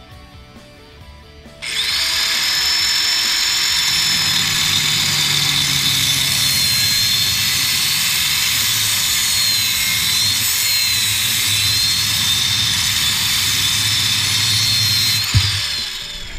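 Angle grinder with an abrasive cutoff wheel starting up about two seconds in and cutting through a steel fence top rail for about thirteen seconds, a loud steady grind with a high whine that dips slightly as the wheel bites into the pipe. Near the end a sharp clunk as the cut finishes, and the grinder winds down.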